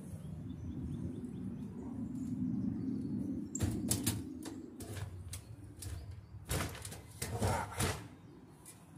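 Hands working at parts under the base of a discarded dishwasher: rustling and scraping, then a quick run of sharp clicks and knocks a few seconds in, and another longer cluster of knocks and scraping near the end.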